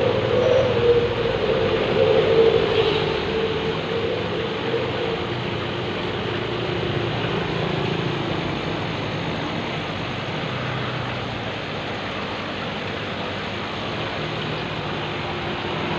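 Steady rushing and bubbling of aquarium aeration and water, with a low hum. A wavering tone sits on top in the first few seconds and fades away.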